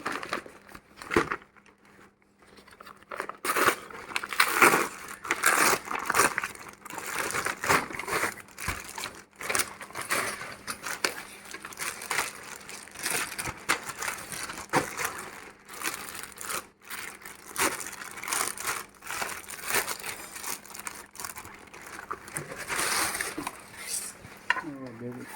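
Plastic packaging crinkling and rustling in irregular bursts with sharp clicks as it is handled and opened.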